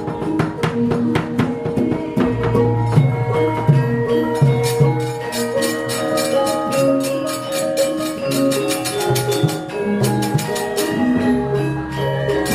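Javanese gamelan ensemble playing, with ringing metallophone notes and low sustained tones, over a dense run of sharp knocks from the puppeteer's keprak and dodogan.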